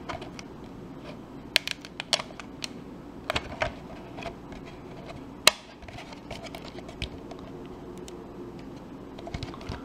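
A thin plastic bottle and a plastic bottle cap being handled: scattered light clicks and crinkles, the loudest about five and a half seconds in, over a low steady hum.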